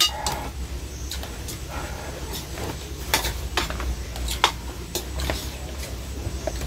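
Cutlery and fingers clinking and scraping against enamel bowls during a meal: scattered short, sharp clicks, a few a second at most, over a low steady hum.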